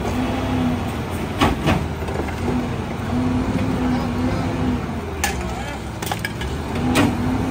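Rear-loader garbage truck standing and running with a steady low hum, while a plastic wheeled cart is tipped and knocked against the hopper and yard waste is dumped in: a few sharp knocks, two close together about a second and a half in, then one a little after five seconds and one at about seven.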